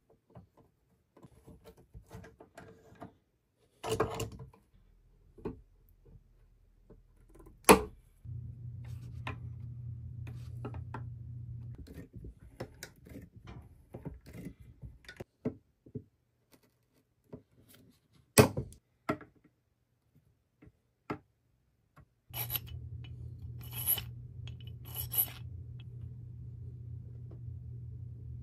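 Fret work on an ebony guitar fretboard under an arbor fret press: scattered clicks and knocks with a few sharp snaps. Twice a steady low hum starts and stops abruptly, the second time about two-thirds of the way in, running on to the end.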